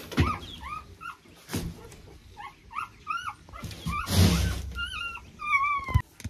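Young puppies whimpering and squeaking in a dog house: many short, high, rising-and-falling cries, ending in a couple of longer falling whines. A loud scuffle and bump about four seconds in as a person crawls into the plywood dog house.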